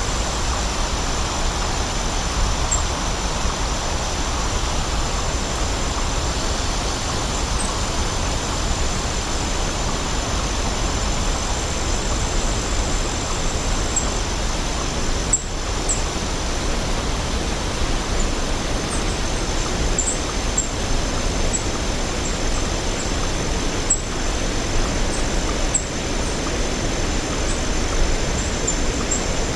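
Waterfall rushing steadily, with brief high bird chirps scattered over it, more of them in the second half.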